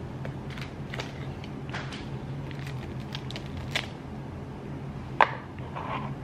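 Small clicks and taps of earrings and their packaging being handled, with a sharp, louder click about five seconds in, over a steady low hum.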